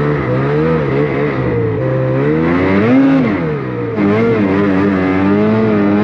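Snowmobile engine revving as it is ridden through deep powder snow, its pitch climbing and dropping with the throttle, with one big rise and fall about three seconds in.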